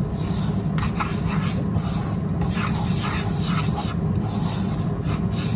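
Metal spoon scraping and stirring dry muscovado sugar around a nonstick frying pan in repeated short strokes, over a steady low hum.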